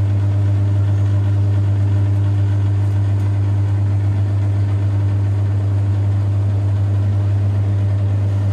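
Steady low mechanical hum, even and unchanging throughout.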